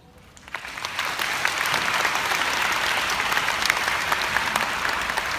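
Audience applauding: clapping breaks out about half a second in, builds within a second, and holds steady.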